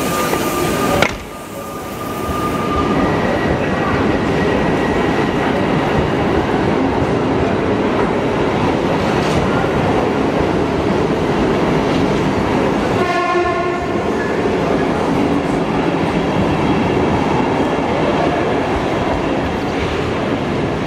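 Stadler KISS double-deck electric multiple unit rolling past along the platform, with the steady running noise of its motors and wheels. A sharp knock comes about a second in, and a short horn sounds about thirteen seconds in.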